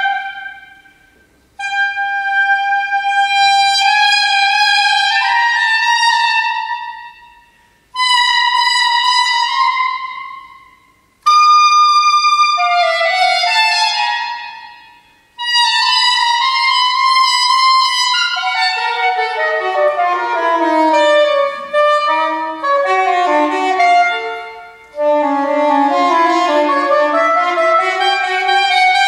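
Solo saxophone playing long held high notes, each fading out into a short gap. About two-thirds of the way in come fast runs that leap widely up and down.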